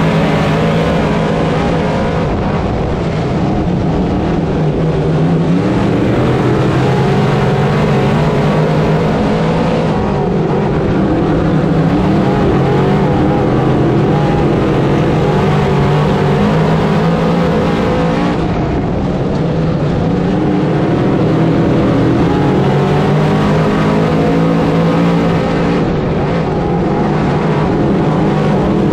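Small-block 358 V8 of a dirt modified race car running hard on track, heard from inside the cockpit. The engine note rises and falls continuously as the throttle comes on and off, and the upper register drops away briefly about ten and again about eighteen seconds in.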